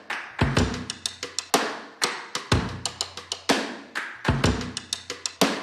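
Background music: a drum-kit beat, a kick drum about once a second with snare hits and quick cymbal ticks between.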